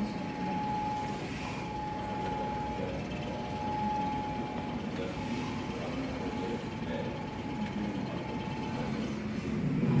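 Steady background noise of a large indoor exhibition hall with faint distant voices, and a thin steady whine that stops about a second before the end.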